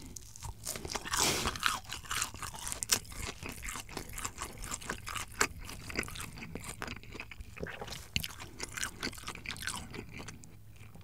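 Breaded fried cheese stick being bitten and chewed close to the microphone: a crisp bite about a second in, then many small crunches of the crust as it is chewed.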